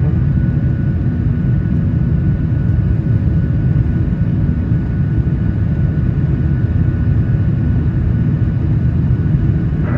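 Cabin noise of a Boeing 737-900 in the climb after takeoff: a steady, loud low rumble of its CFM56-7B turbofan engines and airflow, with a faint steady whine above it.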